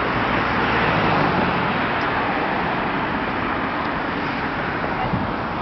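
Steady road traffic, with cars passing close by and a slight swell about a second in.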